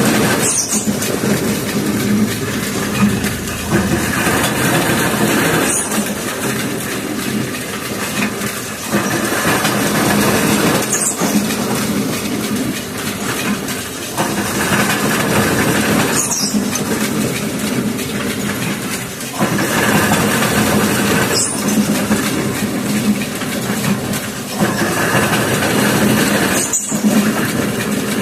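Planing machine running through its reciprocating strokes, a steady machine noise that changes tone between a longer stroke and a shorter one. A sharp knock comes at each reversal, about every five seconds.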